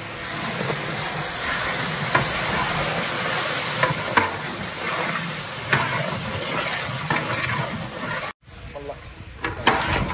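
Spice masala frying and sizzling in oil in a large aluminium cooking pot, while a long metal paddle stirs it, scraping and knocking against the pot now and then. The sizzle cuts out suddenly near the end and comes back quieter.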